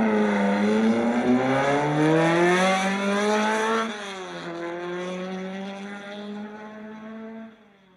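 A car engine accelerating hard, its pitch rising, dropping sharply at a gear change about four seconds in, then climbing again as it fades out.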